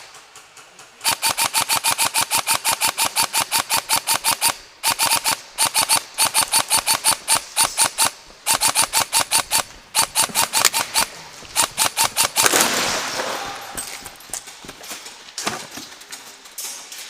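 Airsoft gun firing on full auto in long strings of sharp snapping shots, about eight a second, with short breaks between strings. About twelve seconds in there is a second of loud rushing noise, and after it only scattered single shots.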